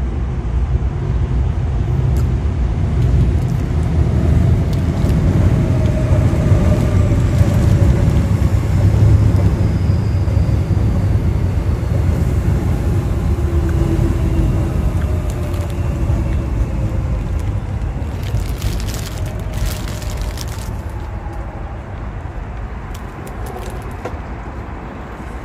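Low rumble of passing motor traffic, swelling over the first ten seconds or so and then slowly fading. Short crackles of a paper wrapper come about two-thirds of the way through.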